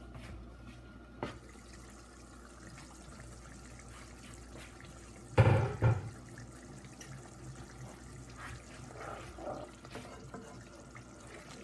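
Tomato and eggplant sauce simmering in a pot, a low steady bubbling. About halfway through come two loud knocks as the glass lid is lifted off and set down.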